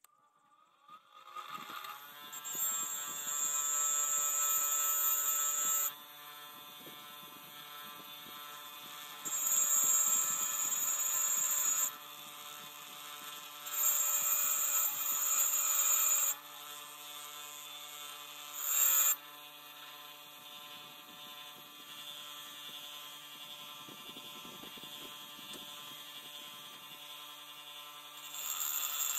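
Electric bench grinder switching on and running with a steady motor hum. A brass LP gas hose fitting is pressed against the spinning wheel several times, giving loud high-pitched grinding for a few seconds each time as the fitting is cleaned.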